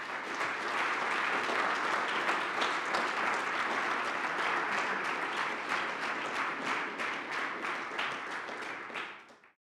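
Audience applauding, a dense patter of many hands clapping, which stops suddenly near the end.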